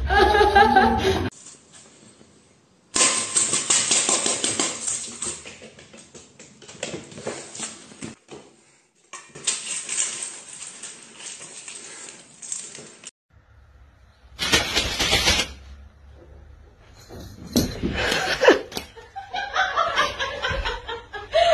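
Laughter at the start, then a cat crunching dry food and treats from a metal bowl for about ten seconds, a dense run of crackling bites. Laughter and voices return near the end.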